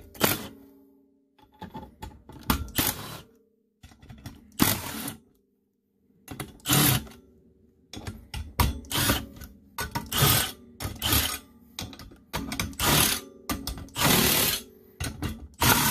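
Milwaukee FUEL cordless impact driver hammering in many short bursts, backing the cover bolts out of a snowmobile primary clutch.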